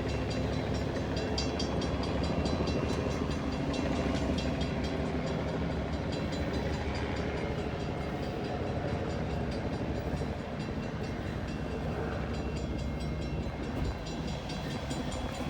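Heavy engine running steadily: a low rumble with a few steady tones over it.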